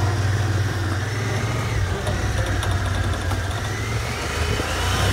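Honda Pioneer 1000 UTV's parallel-twin engine running under way, heard from inside the cab, with a whine that rises and falls in pitch and climbs near the end.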